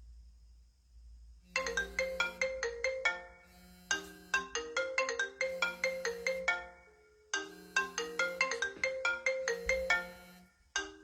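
Mobile phone ringtone: a melody of quick, bright notes starting about a second and a half in, played in repeating phrases with brief pauses between them.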